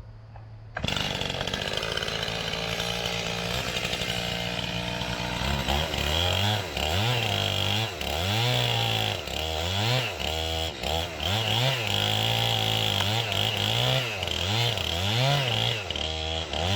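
A chainsaw starts up abruptly about a second in and runs at high speed. From about five seconds in its engine pitch repeatedly dips and recovers as the chain works into the wood of the back cut near the hinge.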